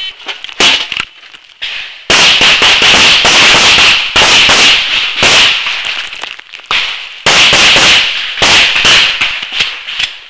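Pistol fire at close range during an IDPA stage: a few shots in the first two seconds, then rapid strings of shots with a short break a little past halfway.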